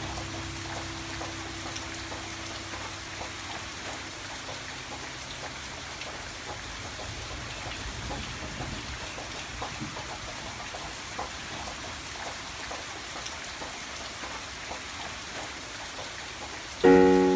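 Steady patter of rain, an even hiss with small drop ticks. Background music fades out just after the start and comes back near the end with loud, sudden keyboard-like notes.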